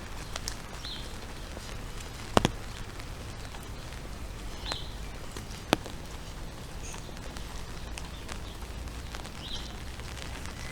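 Steady hiss of falling rain, with a few sharp knocks of drops, the two loudest about two and a half and six seconds in.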